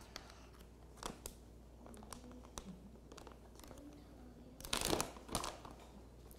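Plastic bag crinkling as it is handled and opened, with a few light clicks on the counter; the loudest rustle comes about five seconds in.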